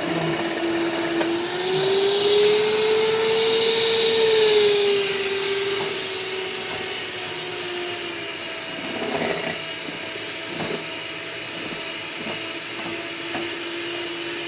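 Electric mixer's motor whining steadily as it beats pancake batter; its pitch and loudness rise about two seconds in and settle back down a few seconds later, with a few knocks past the middle.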